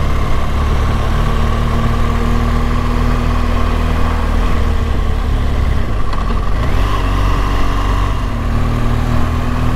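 BMW GS motorcycle engine running steadily under way, heard from on the bike; the engine note dips and shifts about six seconds in.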